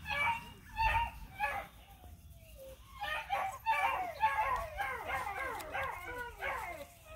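Several dogs barking and yelping in short calls, a few spaced ones at first, then many quick overlapping calls from about three seconds in. It is the sound of kenneled dogs complaining to be let out.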